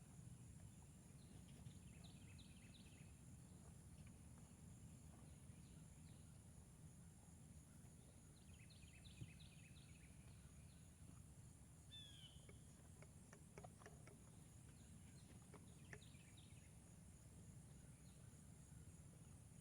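Near silence: faint rural ambience with a steady high insect drone and a low rumble. Small birds chirp in two quick runs, and one falling call sounds about two-thirds of the way through, along with a few faint ticks.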